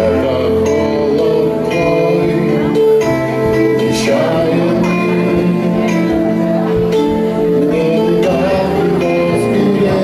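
A man singing a lyrical song into a microphone over steady instrumental accompaniment.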